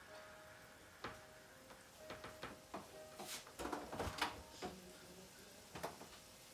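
Quiet kitchen sounds: a scattered series of light clicks and knocks at irregular intervals, a few of them with a dull thump, over a faint background hum.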